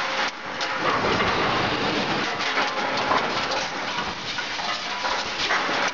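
Four-cavity PET bottle blow moulding machine running: a steady mechanical clatter with a continuous hiss.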